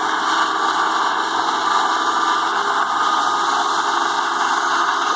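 Tow boat's engine running steadily under a constant rush of wind. It is heard through a playback device's speaker.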